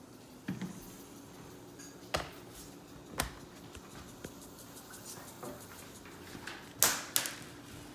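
Handling noise from a MacBook Pro laptop being carried: a few scattered knocks and bumps at irregular intervals, the loudest two close together near the end.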